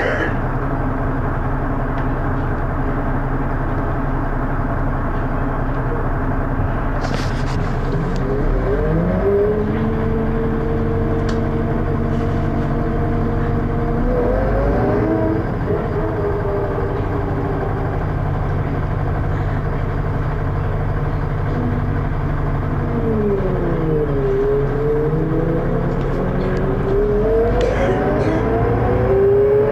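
Dennis Arrow bus with a ZF automatic gearbox, heard from inside: the engine runs steadily, then the bus pulls away with a rising whine. About 14 s in the pitch drops and climbs again at a gear change. Later it falls as the bus slows, and it rises again as the bus pulls away near the end.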